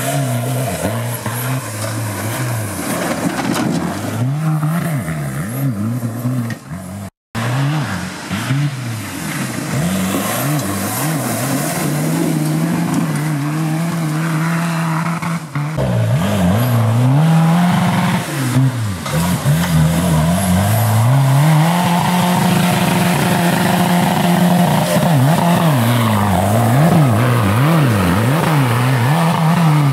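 Suzuki Vitara off-road special's engine revving hard, its pitch repeatedly climbing and dropping with throttle and gear changes, over a haze of tyre and gravel noise. The sound breaks off for an instant about seven seconds in and jumps abruptly near sixteen seconds at edit cuts.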